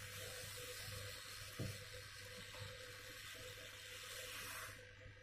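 Hot-air rework gun blowing a steady hiss of air onto the circuit board to melt the solder and reseat a component, with a low hum under it and one small knock about one and a half seconds in. The airflow cuts off near the end.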